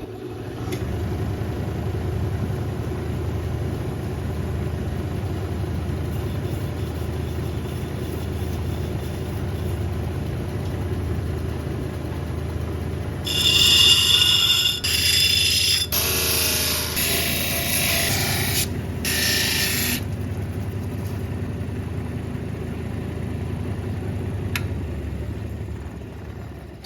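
Lapidary cabbing machine's motor running with a steady hum while an agate is shaped and polished on its wheels. A louder, harsher noise runs for about seven seconds around the middle.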